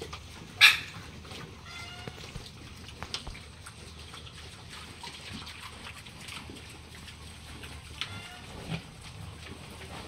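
Pigs in a pen, Hampshire and Yorkshire types, giving one short, loud squeal about half a second in and a few grunts near the end, while rooting at the floor.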